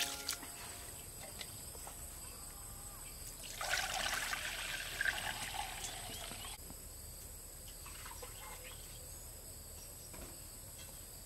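Milky rice-rinsing water poured from a steel basin into a pot, a splashing pour of about three seconds in the middle that cuts off suddenly.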